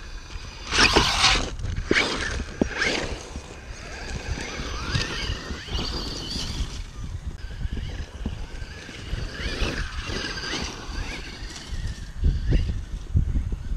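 Losi Rock Rey RC rock racer driving hard over loose dirt: a burst of tyres spinning and spraying dirt about a second in, then the electric motor's whine rising and falling as it speeds up and slows. Low thumps near the end.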